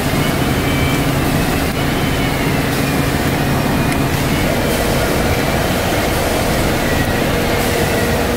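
Enerpac hydraulic torque wrench pump running steadily and loudly. A higher steady hum joins about four and a half seconds in.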